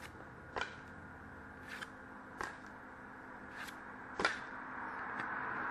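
Trading cards being flipped through by hand, about five short soft snaps as cards slide off the front of the stack, the loudest a little past four seconds in. A faint hiss rises near the end.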